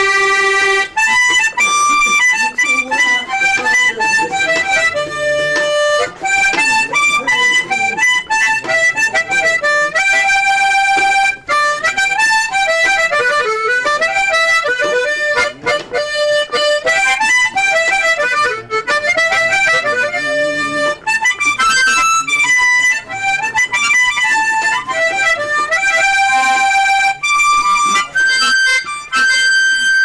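Harmonica playing a melody of mostly short, quick notes, with a few held for about a second.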